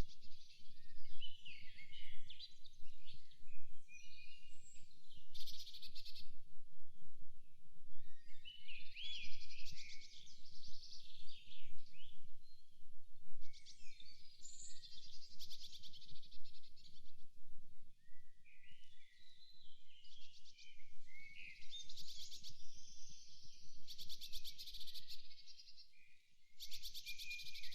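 Several wild birds singing and calling in a forest, in overlapping phrases with rapid, fast-pulsed trills now and then. A low rumble runs underneath.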